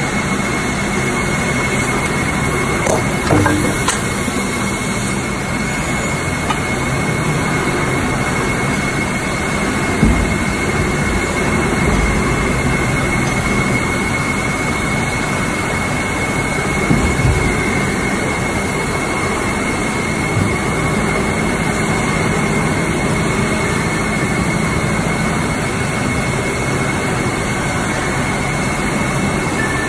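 Two-colour injection moulding machine running through its cycle: a steady loud machine drone with a thin high whine over it, broken by a few short knocks.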